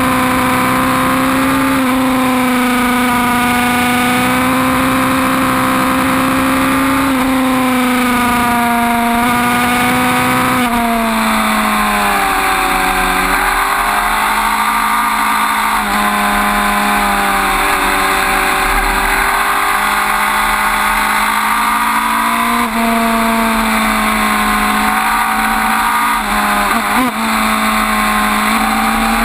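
Suzuki GSX-R1000 K5's inline-four engine running hard at high road speed, heard from on the bike under a steady rush of wind. The engine note holds steady, drops in pitch about ten seconds in, then rises and falls gently with the throttle.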